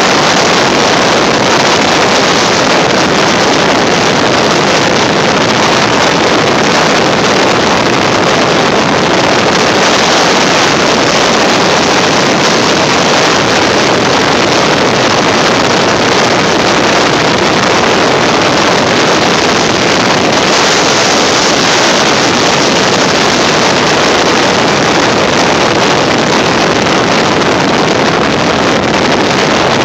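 A moving car's steady wind and road noise, loud and unbroken, with wind blowing across the phone's microphone.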